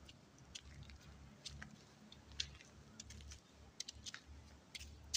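Bantam chickens pecking feed off a concrete floor: faint, irregular sharp taps over a low rumble.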